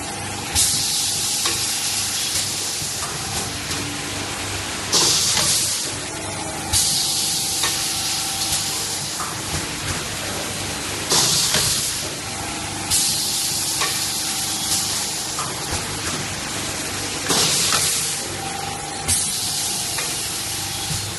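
Pneumatic paper plate forming machine cycling: about every six seconds a short, loud blast of compressed-air hiss, followed by a longer, softer hiss, over a steady machine hum.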